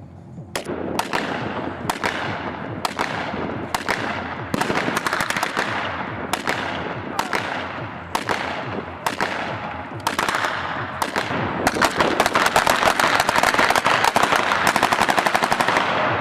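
Gunfire: single shots roughly once a second, each with a trailing echo, then from about twelve seconds in, rapid automatic fire.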